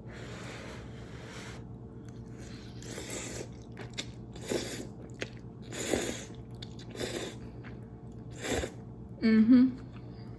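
A woman blowing on hot noodles, then coughing in short bursts several times; the loudest, a throaty voiced cough, comes near the end.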